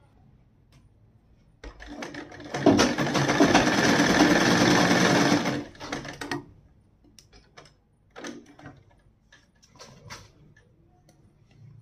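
Sewing machine starts about two seconds in, runs steadily for a few seconds stitching a folded-under neckline seam, then stops abruptly. Afterwards come a few short faint clicks as the work is handled.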